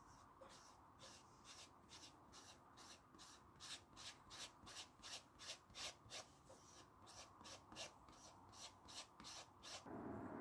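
A plastic spreader card scraping back and forth across the suede flesh side of leather, spreading a wet coat of glue, in quick even strokes of about three a second. The strokes stop just before the end.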